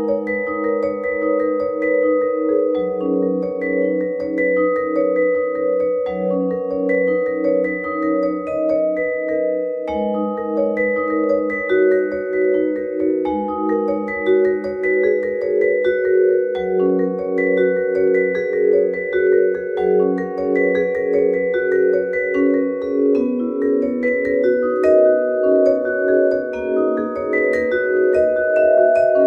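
Solo Musser vibraphone played with four yarn mallets: sustained, ringing chords and a higher melody line, with low notes pulsing evenly beneath.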